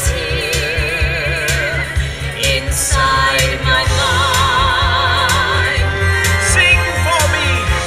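A singer holding long notes with wide vibrato over a musical accompaniment with a pulsing bass.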